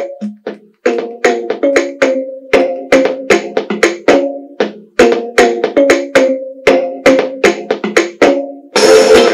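Music in a quick rhythm of short, pitched, percussive notes that die away fast. Near the end a fuller, louder section with cymbal-like hiss comes in.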